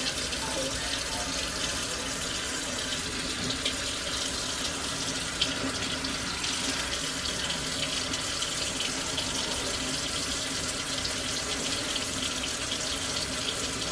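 Water running steadily, an even unbroken rush.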